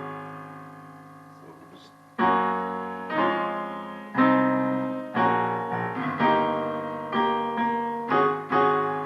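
Piano chords in D flat: a D flat suspended-fourth chord over A flat rings and dies away, then from about two seconds in block chords are struck roughly once a second, each ringing and fading before the next.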